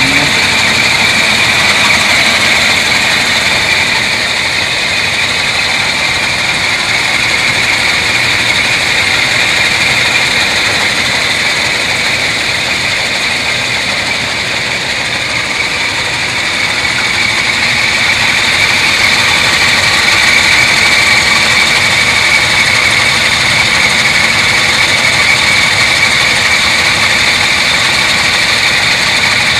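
1939 Cadillac V16's L-head (flathead) engine idling steadily.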